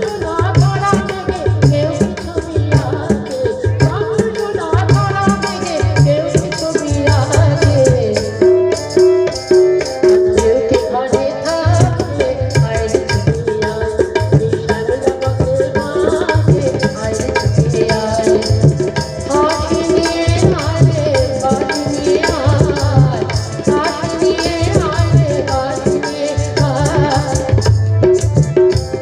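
Live music with tabla: regular deep drum strokes under a held and moving melody line.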